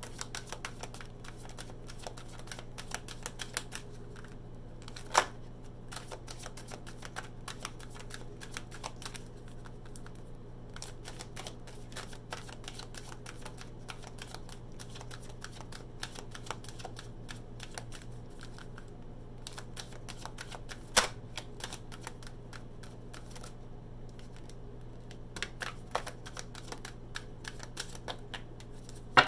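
A deck of oracle cards being hand-shuffled: a fast, uneven patter of card clicks, with a louder sharp snap about five seconds in and another about twenty-one seconds in. A low steady hum runs underneath.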